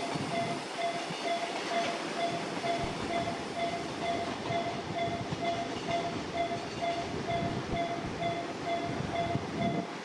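Japanese level-crossing electronic warning bell ringing in short repeated tones, about two a second, over the steady rumble of a passing train. The alarm has a listless, unenthusiastic sound.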